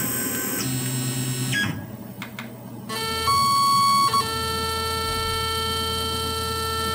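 Axis stepper motors of a Tormach PCNC 770 CNC mill whining as the machine is jogged between positions. A short run comes first. From about three seconds in, a longer steady whine follows, starting on a higher pitch for about a second before settling lower.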